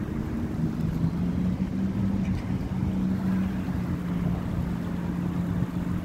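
A steady low motor hum over wind rumbling on the microphone.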